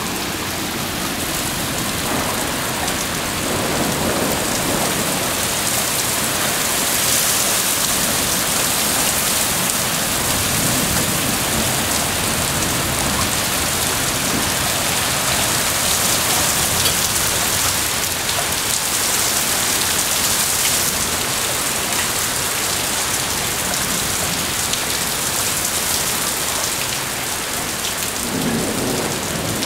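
Heavy rain pouring steadily onto a concrete driveway and lawn in a thunderstorm.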